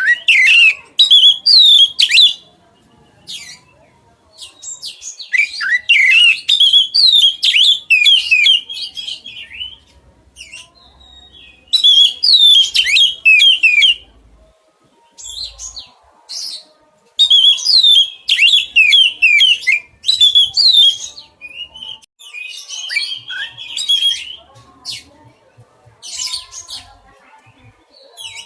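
A songbird singing in repeated bursts of rapid, varied chirps and trills, each burst a few seconds long with short pauses between.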